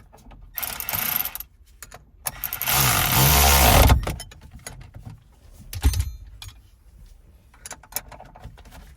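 Ratchet running down and tightening a 13 mm nut on the shifter cable mount: a short run, then a longer, louder one about two seconds in. A sharp knock follows near six seconds.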